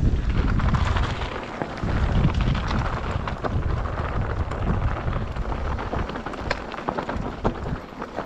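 Mountain bike riding a dirt trail at speed: wind buffeting the microphone over steady tyre noise, with many sharp clicks and rattles. The rumble is heaviest in the first second and eases a little after.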